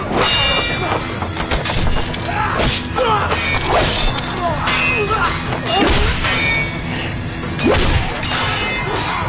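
Film score music over a fight, with repeated thuds and whacking blows.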